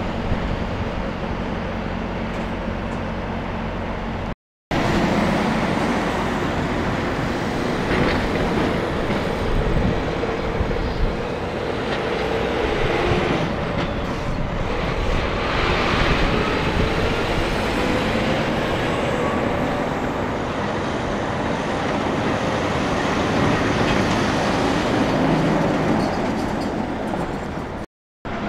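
Semi trucks pulling through an intersection: diesel engines running and speeding up, their pitch rising, over steady tyre and road noise. The sound drops out completely twice, briefly.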